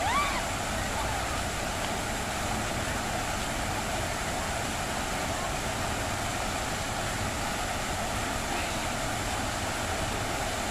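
Fountain jets spraying and splashing into the basin, a steady rush of falling water. A brief rising voice at the very start.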